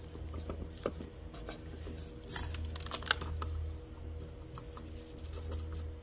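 Gloved hands pressing and firming gritty potting soil around succulent rosettes in a pot, giving scattered light crunches and clicks. Near the end a small metal spoon scrapes in the soil. A steady low hum runs underneath.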